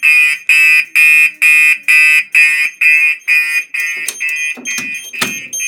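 Gentex SHG fire alarm sounding a harsh, buzzy tone in rapid pulses, about three a second, signalling the release stage of a Fike SHP releasing panel. There is a single knock about five seconds in.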